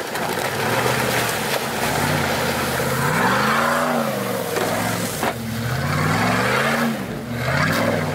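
Jeep Grand Cherokee engine revving up and dropping back several times as it claws out of an icy ford, with its tyres spinning and churning through slush and snow. There is a single sharp crack about five seconds in.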